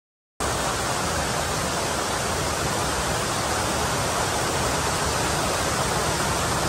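Steady rushing of fast-running mountain water, an even noise without pauses or changes, cutting in abruptly just after the start.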